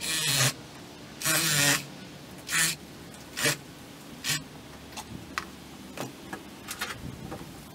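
A fillet knife rasping through a sheepshead's scaly skin in five strokes that get shorter and fainter, followed by lighter scrapes and ticks of the blade on the cutting board.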